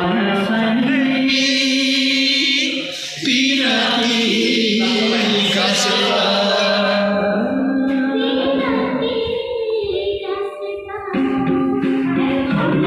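A song with singing plays, its sung notes held long and wavering, with short breaks about three seconds in and again near ten seconds.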